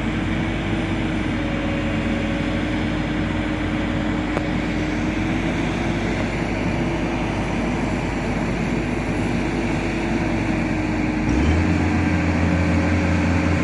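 A vehicle engine running steadily with a low, even hum. About eleven seconds in, the deep hum changes and gets slightly louder.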